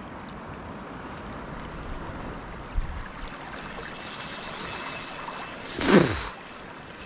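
Small waves lapping under a spinning reel, a Daiwa Luvias 2500 on an ultralight rod. From about three seconds in the reel is wound in with a steady high whine from its gears. A short whoosh that drops in pitch comes about six seconds in.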